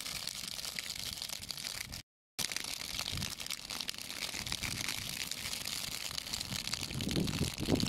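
Burning dry grass and trees crackling: a dense, steady crackle of many fine snaps, cut off by a brief drop to silence about two seconds in, with a low rumble rising near the end.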